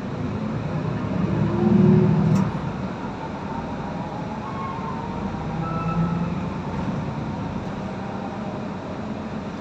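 Diesel engine and drivetrain of a Solaris Urbino 18 III articulated city bus, heard from inside the passenger cabin while under way. A low engine drone swells to its loudest about two seconds in, then eases back. A faint rising whine follows as the bus runs on.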